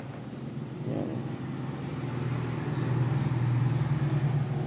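A motor vehicle's engine running, a low steady hum that grows louder toward the end.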